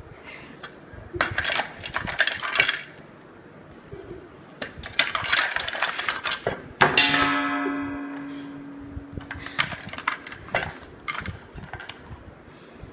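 Cutlery clattering on a plate in quick clusters of clinks, then about seven seconds in a sharp clang that rings on for a few seconds, and more scattered clinks near the end.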